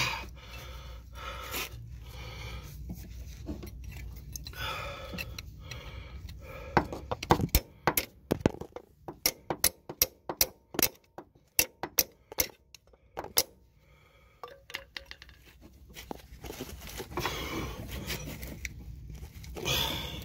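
Steel pry bar scraping and levering at the old axle seal in the transaxle case. From about seven to thirteen seconds in comes a quick run of sharp metallic clicks and taps, about three a second, as the bar works the seal.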